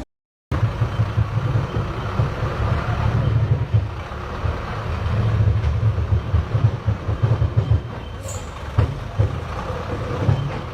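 Logging truck's engine rumbling unevenly under load, starting after a half-second gap, with a few sharp knocks and clanks in the second half.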